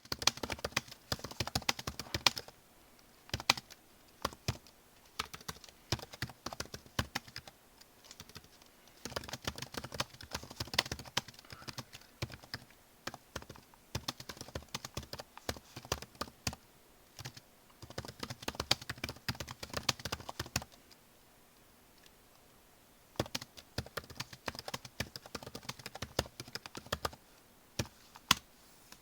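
Typing on a computer keyboard: quick runs of key clicks in bursts of a few seconds, broken by short pauses, one of them longer in the last third.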